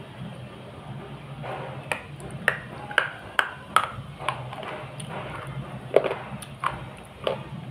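Sona-brand slate pencil being bitten and chewed close to the microphone: about a dozen sharp crunches at uneven intervals, starting about two seconds in.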